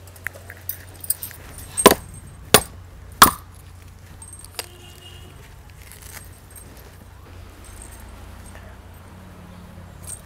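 Three sharp metallic clinks about two-thirds of a second apart, the last ringing briefly, after a few lighter clicks, as a small copper tumbler is handled among the vessels on a puja altar. A low steady hum runs underneath.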